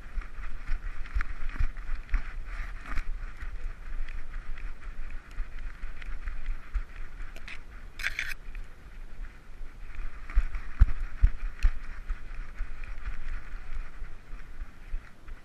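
Handling noise from a GoPro camera strapped to a running dog: steady rubbing and rustling with irregular low thumps from the dog's strides and body jolts, and one brief, sharper scratchy burst about eight seconds in.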